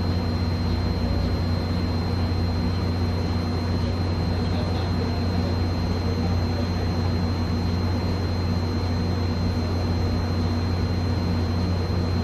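Steady low mechanical hum with a thin, faint high whine above it, unchanging throughout.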